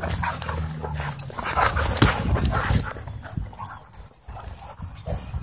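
Dogs play-fighting: low growling and scuffling paws on dirt, with a dog's whimper. It is louder in the first half and dies down after about three seconds.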